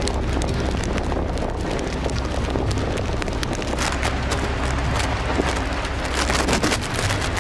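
Strong storm wind gusting and buffeting the microphone, with a heavy low rumble and crackling bursts, and rain mixed in.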